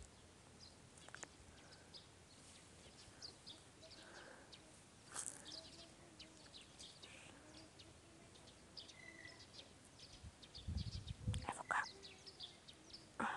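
Faint birdsong from small birds: many short, high chirps scattered throughout. A brief low rumble comes about ten seconds in.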